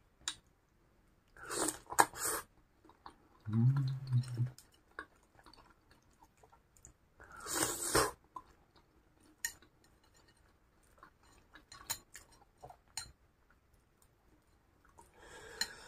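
Close-up chewing of chewy fried cilor, tapioca balls coated in fried egg, with wet mouth clicks throughout. A short low hum comes about four seconds in, and there are breathy rushes near two and eight seconds.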